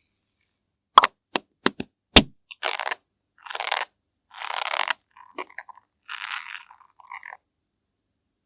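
Makeup ASMR handling sounds: five sharp clicks in quick succession, like a compact or makeup case being opened and tapped, then five or six scratchy strokes about half a second each, like a brush or applicator rubbing.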